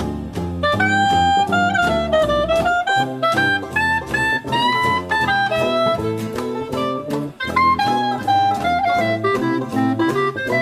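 Instrumental jazz background music: a saxophone melody over a steady drum beat and bass line.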